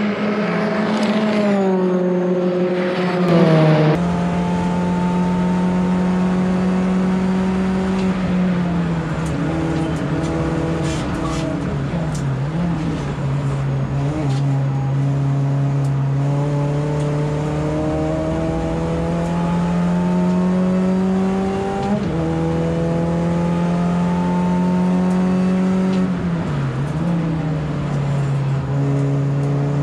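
Mini Cooper S (R53) race car's supercharged four-cylinder engine under hard load. Its note climbs slowly in long pulls and drops back sharply several times, with a sudden change in the sound about four seconds in.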